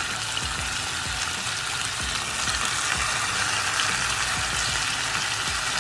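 Pork neck bones searing in hot avocado oil in an enamel-lined Dutch oven: a steady sizzle that grows a little louder about two seconds in.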